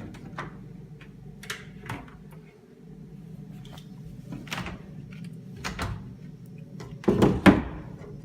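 Kitchen cupboard doors being opened and shut one after another: a series of short knocks and clacks, the loudest two in quick succession near the end.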